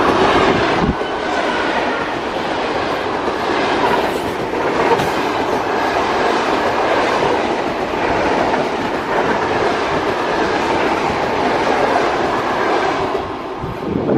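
An electric train passing close by: a steady loud rolling rumble of wheels on rails, with the clickety-clack of wheels over rail joints. The noise drops off near the end as the train clears.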